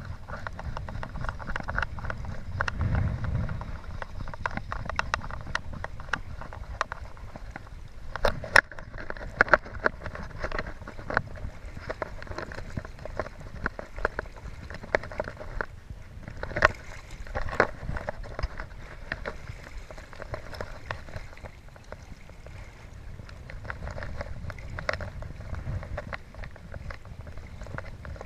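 Fast river water splashing and gurgling right at an action camera held just above the surface, with a low rumble and many irregular sharp clicks and knocks against the housing.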